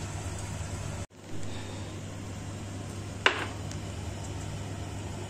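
Chicken frying in a lidded stainless-steel kadai: a steady sizzle, broken by a brief dropout about a second in. About three seconds in, a single sharp clink with a short ring.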